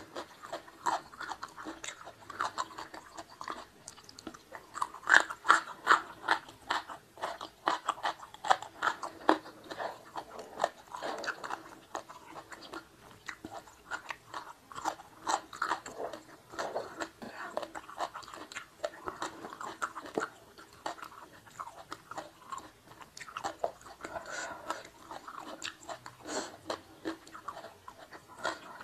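Close-up chewing and crunching of mouthfuls of rice, fish and raw vegetables such as young jengkol, with wet mouth sounds: an irregular run of crisp bites and crackles, the loudest about five seconds in.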